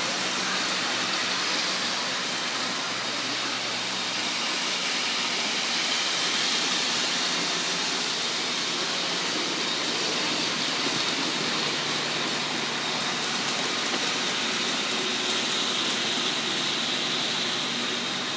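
O scale model trains running on the layout's track: a steady, even rumble of wheels and motors.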